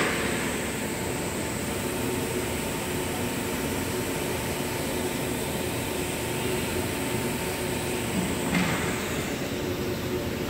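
Steady hum and hiss of a CNC router's vacuum table pump running, with a brief scuff near the end as a board is shifted on the table.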